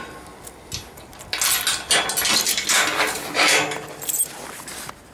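Keys jangling and a key working a padlock, with metal clinks and rattling from the steel gate's latch as it is unlocked and opened, mostly from a little over a second in to about four seconds.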